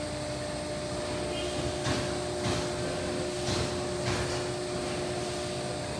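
Hydraulic power unit of a Cincinnati 230-ton CNC press brake running steadily: a constant hum with a faint steady whine over it, and a few light clicks.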